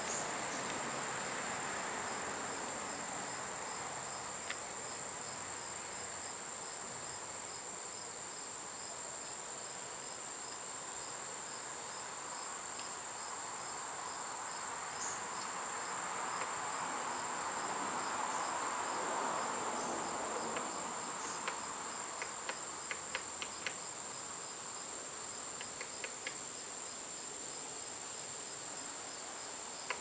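A steady, high-pitched chorus of insects trilling without a break. A few short runs of faint light taps come about three-quarters of the way through.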